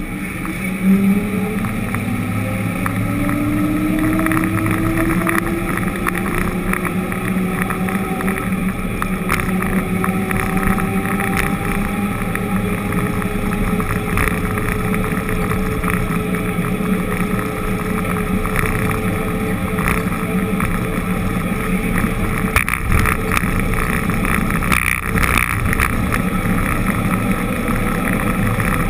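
Vehicle engine running while driving. Its pitch rises steadily over the first few seconds as it speeds up, then holds roughly level.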